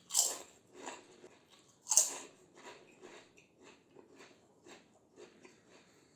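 Crispy fried snack (papad or fryums) bitten with two loud crunches about two seconds apart, then chewed with a run of small crackling crunches.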